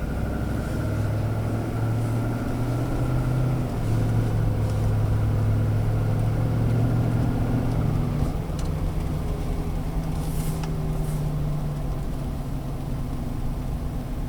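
A 6.2-litre V8 engine running cold with a knock. Its speed goes up slightly about a second in and again near four seconds, then settles back about eight seconds in.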